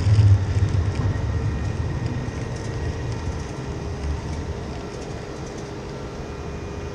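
City tram passing at low speed and moving away: a low rumble, loudest in the first second, fading steadily.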